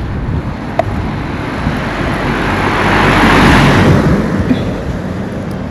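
A road vehicle passing close by, its noise swelling to a peak about three and a half seconds in and then fading away.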